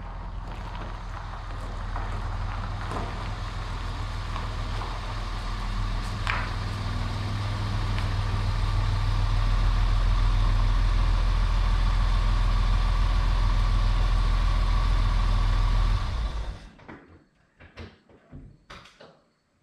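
Mercedes-Benz W108 sedan's engine running as the car pulls in and stops, growing louder as it comes close, then switched off about sixteen seconds in. A few light clicks follow.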